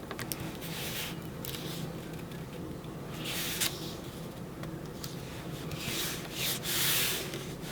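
Paper strips being slid and rubbed down onto scrapbook base paper: several separate swishing rubs, the longest near the end, with a few light taps.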